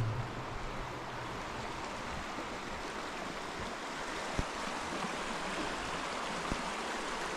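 Stream water running, a steady rush with no changes.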